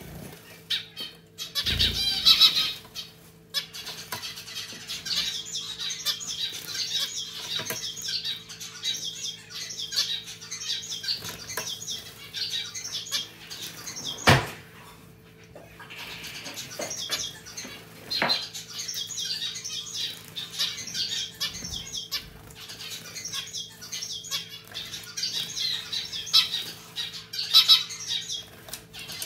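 Zebra finches bathing in a pet water fountain, splashing and flapping their wings in the water, with louder splashes about two seconds in and around the middle. Zebra finches chirp and call throughout over the trickle of the fountain.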